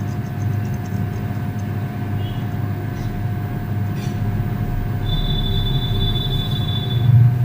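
A steady, low machine hum that does not change, with a thin high whine for about two seconds near the end.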